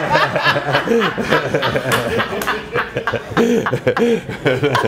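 A man and a woman laughing together at a joke, in chuckles and short bursts, with others in the room laughing along.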